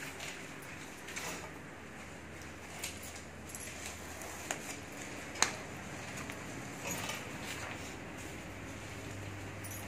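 Hand screen printing: paper sheets handled and slid into place, a squeegee pulled across the screen, and short knocks and clicks from the screen frame on the table, the sharpest about five seconds in.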